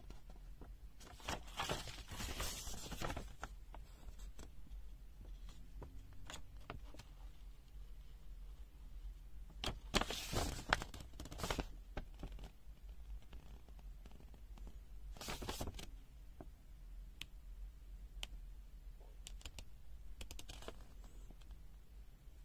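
Paper pages of a small user manual rustling as they are turned, three main bursts of rustling with light clicks and taps in between.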